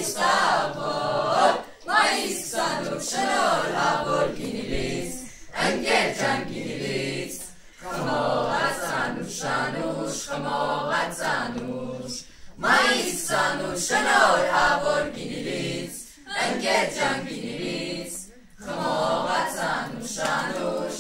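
A small choir of teenage students singing unaccompanied, in sung phrases a few seconds long separated by short breaks for breath.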